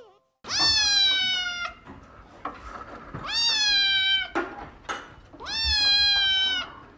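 Grey-and-white kitten meowing three times. Each meow is long, about a second, with a quick rise then a slow fall in pitch.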